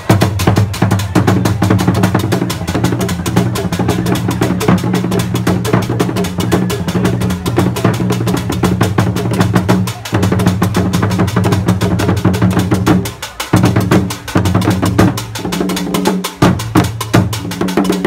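Asante kete and fontomfrom drum ensemble playing: fast, dense stick strokes over deep, ringing drum tones, with brief breaks in the pattern about ten and thirteen seconds in.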